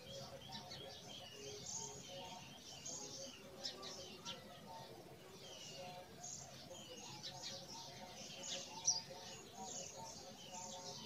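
Faint chirping of small birds, short scattered calls throughout.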